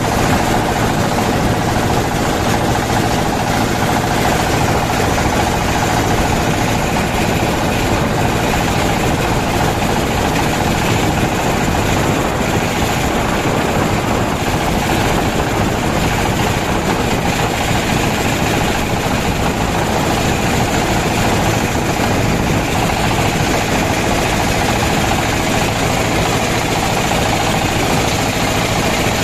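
Small boat's engine running steadily under way, a constant droning hum with no change in speed.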